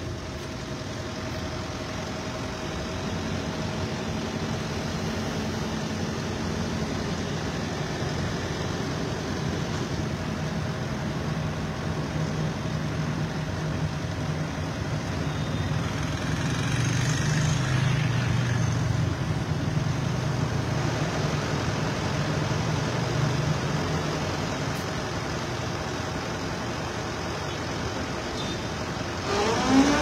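Excavator's diesel engine running steadily, growing louder for several seconds in the middle as the bucket pushes against the heavy load, then easing back.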